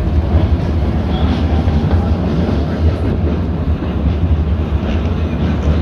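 New Orleans RTA streetcar running on its rails, heard from inside the car at an open window: a loud, steady low rumble of the moving car.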